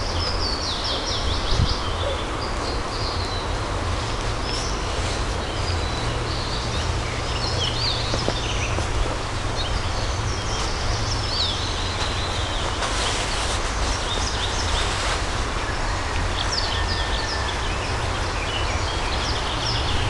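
Several songbirds singing and calling in woodland, with short chirps and trills throughout. A steady low rumble of noise on the microphone runs underneath.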